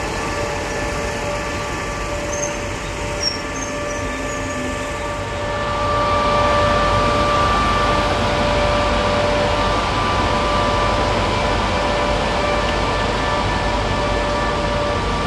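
Class 87 electric locomotive and its coaches running past: a steady hum on two tones over the rumble of the wheels, louder from about six seconds in.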